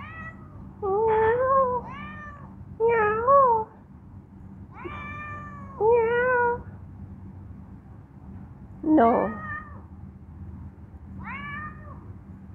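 Young tabby-and-white stray cat meowing repeatedly, about eight loud calls of a second or less, some wavering in pitch, begging for food.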